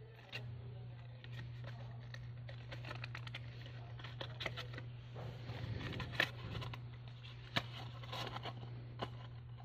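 Stiff paper rustling and crackling as hands fold and press a folded paper box flat, with a string of sharp clicks, the loudest about six and seven and a half seconds in. A steady low hum runs underneath.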